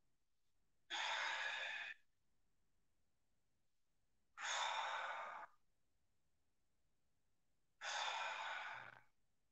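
A man breathing hard: three long, hissy breaths, each about a second, a few seconds apart, one with each rep of a seated spinal twist stretch.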